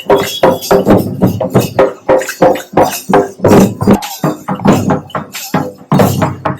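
Loud rhythmic festival percussion: drums struck in a fast, driving beat with jingling, tambourine-like metal percussion over it.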